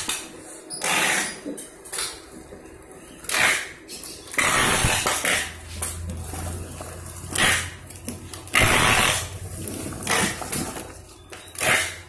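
Packing tape being pulled off a handheld tape dispenser and pressed onto cardboard boxes, in a series of short rips, about seven in all. A low steady hum comes in about halfway through.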